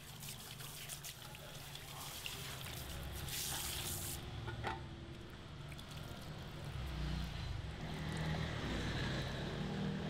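Handheld shower sprayer running water over hair into a salon shampoo basin, shut off about four seconds in. After that, quieter dripping and the wet hair being squeezed by hand.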